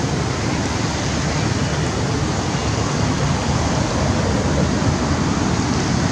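Steady rushing noise with no distinct calls, knocks or other separate events.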